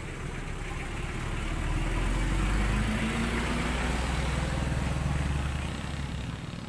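A motor vehicle's engine passing on the road close by: a low rumble that grows louder over the first two seconds, holds, then fades near the end.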